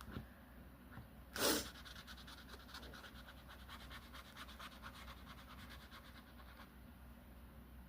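Colouring strokes scratching rapidly back and forth on a colouring-book page, a fast even run of soft scratches that stops shortly before the end. About a second and a half in there is one brief, louder hiss-like noise.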